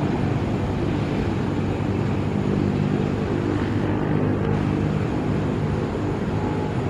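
Twin Pratt & Whitney PW127M turboprops of an ATR 72-600 at takeoff power during the takeoff roll: a steady, low propeller drone.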